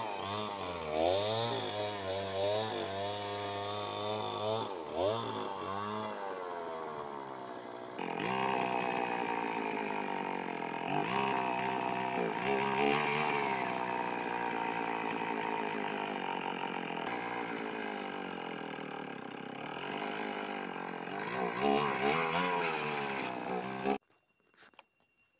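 Two-stroke chainsaw engine running, its pitch rising and falling again and again as the throttle is worked, then stopping abruptly near the end.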